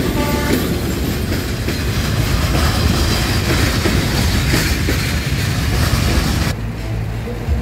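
Diesel train horn ending about half a second in, then a loaded freight train's boxcars rolling past close by, a loud steady rumble with wheels clattering over the rail joints. About a second before the end the rumble gives way abruptly to a quieter low hum.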